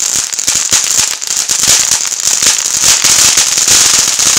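Firework ground fountain spraying sparks: a loud steady hiss with dense crackling all through, growing a little louder after the first couple of seconds.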